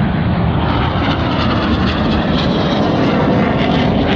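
BAE Hawk T1 jets passing overhead in a display, a loud, steady jet-engine noise.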